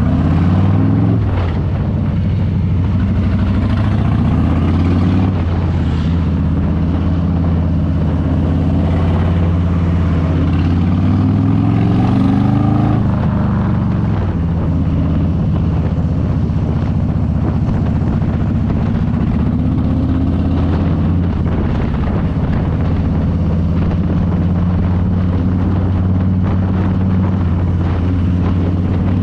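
Harley-Davidson Low Rider S's Milwaukee-Eight V-twin running under way, its pitch climbing and dropping back several times as it pulls through the gears, with one long climb from about nine to thirteen seconds in. It then runs steadily, rising a little near the end.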